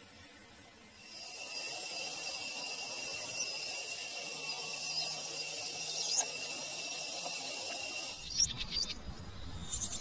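Forest ambience: a steady high-pitched droning whine starts about a second in and cuts off just after eight seconds, followed by quick runs of rapid chirping trills.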